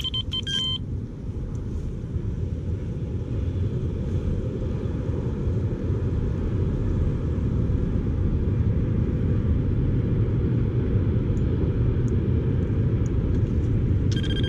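Wind rumbling on the microphone, growing steadily louder. Electronic fishing bite alarms beep in quick high bursts just at the start and again near the end.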